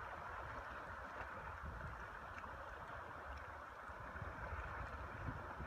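Lake water lapping and hissing around a canoe's hull, with scattered small splashes and an uneven low rumble of wind on the microphone.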